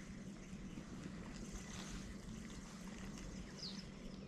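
Steady outdoor waterside ambience: a low hum under an even wash of wind or water noise, with one short high bird chirp near the end.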